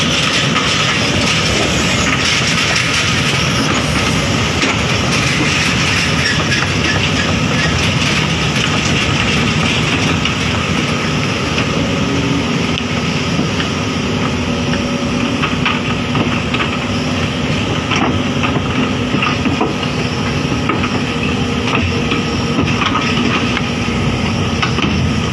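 Sumitomo hydraulic crawler excavator's diesel engine running steadily under load as it swings its boom and drives off a lowboy trailer. Short clanks from the steel crawler tracks come more often in the second half.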